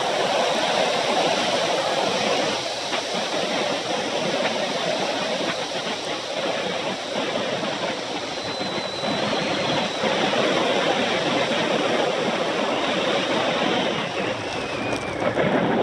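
Steady rushing wind noise over the microphone, with tyres rolling on asphalt, as a bicycle is ridden fast along a paved road.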